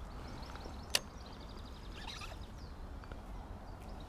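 Outdoor ambience: a steady low rumble, a single sharp click about a second in, then a brief run of faint high chirping ticks.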